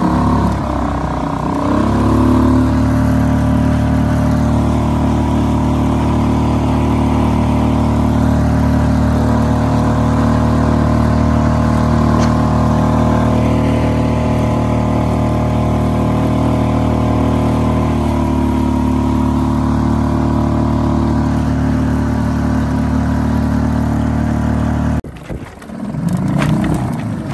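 Suzuki 2.5 HP single-cylinder four-stroke outboard motor running steadily under way, picking up speed in the first two seconds. The engine sound breaks off abruptly about two seconds before the end.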